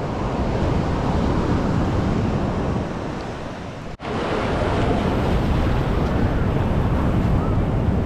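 Ocean surf washing over the sand with wind buffeting the microphone, a steady rushing noise that cuts out for an instant about halfway through.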